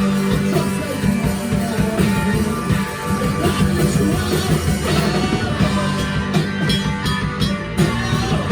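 Rock band playing live: electric guitar with a drum kit pounding steadily underneath.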